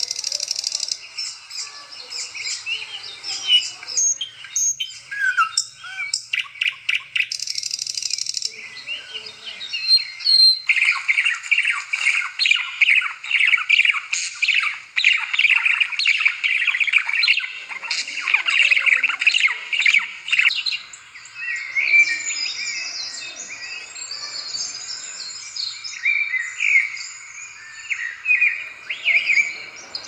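Small birds chirping and twittering, several calls overlapping, with a dense run of rapid chirps from about ten to twenty seconds in.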